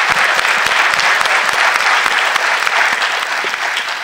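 Audience applauding: dense clapping that begins to fade near the end.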